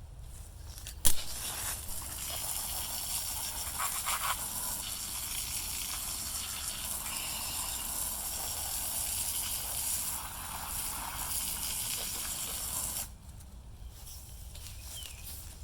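Water spraying from a hose-fed blaster nozzle onto a Stihl MS361 chainsaw, rinsing off soaked-in degreaser: a steady hiss that starts with a sharp click about a second in and cuts off suddenly near the end.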